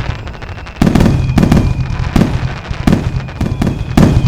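Aerial firework shells bursting in quick succession: sharp booms, several a second, with crackling between them. The first second is quieter before the bangs start.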